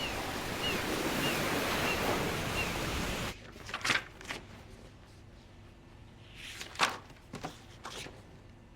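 Sea waves and wind, a steady rushing noise with a few short high chirps, cut off suddenly after about three seconds by a quiet room where a few soft knocks sound.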